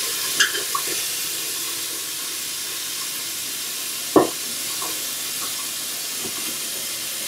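Tap water running steadily into a deep stainless-steel pan, a continuous hiss as the pan fills. A single knock stands out about four seconds in, with a few fainter ones around it.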